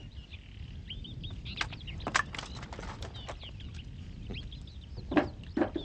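Small birds chirping in quick, short calls that rise and fall, with scattered clicks and two louder short sounds near the end.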